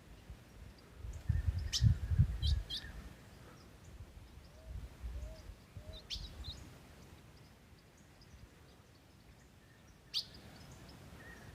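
A bird giving short, sharp chirps, scattered singly and in pairs several seconds apart, with a low rumble in the first few seconds.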